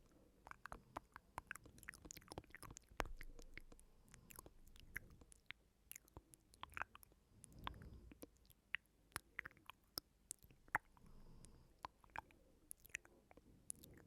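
ASMR mouth sounds: many soft, irregular wet clicks and smacks of the mouth.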